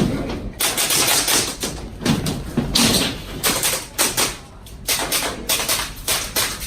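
Airsoft pistol firing a rapid, uneven string of shots during a timed IPSC Action Air stage, about two to three shots a second with short pauses between groups.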